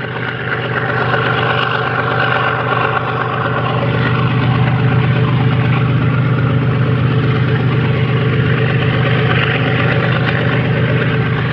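GE GEVO-12 V12 diesel engine of a GE ES43BBi freight locomotive running loud, a steady, heavy low drone.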